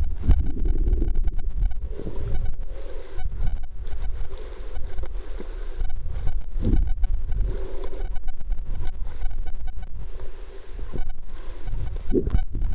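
Muffled sound of water moving around a camera held under water: a steady low rumble with scattered short knocks.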